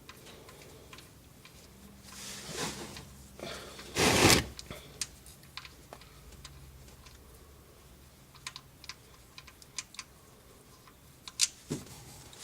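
Socket ratchet working the oil drain plug loose on a GM Ecotec four-cylinder oil pan: a short loud rush about four seconds in, then scattered light clicks.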